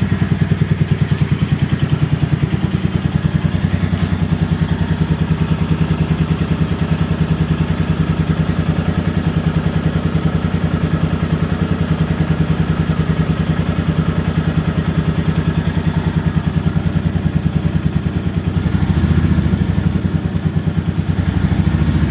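Royal Enfield Meteor 350's single-cylinder engine idling through its exhaust in an even, steady beat. The note swells briefly twice near the end.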